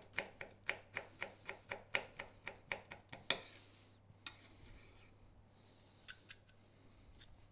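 Kitchen knife chopping fresh basil and oregano on a wooden cutting board: quick, even strokes about four a second, stopping after about three seconds. A few faint clicks follow.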